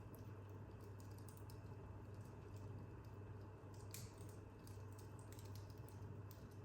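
Wood fire crackling faintly in an open fireplace: scattered irregular small pops and snaps, one sharper snap about four seconds in, over a steady low hum.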